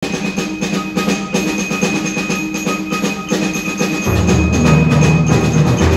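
High school symphonic band playing: a fast patter of percussion strokes over held high tones, then a deep, full band sound comes in about four seconds in.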